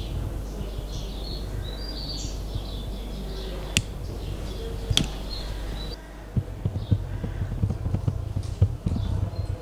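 Small birds chirping over a steady low hum, with two sharp clicks about four and five seconds in. Then the chirping fades and irregular low rumbling bumps on the microphone take over.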